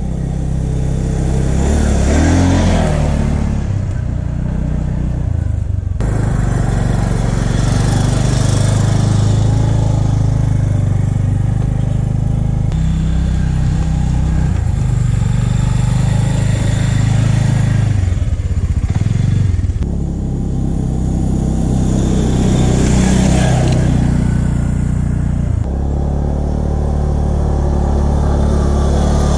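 Arctic Cat Alterra 400 ATV engine running as it rides along a forest trail, the pitch rising and falling with the throttle in places. The engine sound changes abruptly several times where separate shots are joined.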